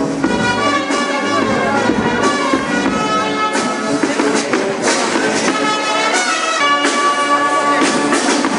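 Brass band music with held notes.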